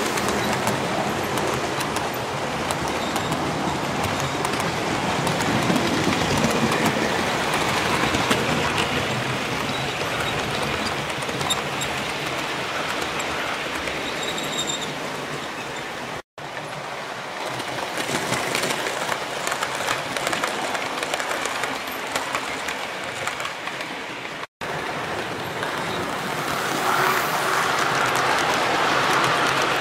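OO gauge model train running on the track: a steady noisy sound of wheels rolling on the rails. It is cut off abruptly twice, a little past halfway and again about three-quarters of the way through, where the shots change.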